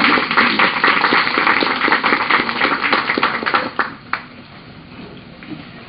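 Congregation applauding for about four seconds, then dying away with a single last clap.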